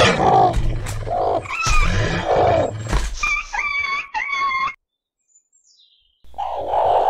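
Animal fight sound effects: snarling and growling with a few sharp thuds, then a wolf's high yelps that break off about four and a half seconds in. After a short silence, one more growl starts near the end.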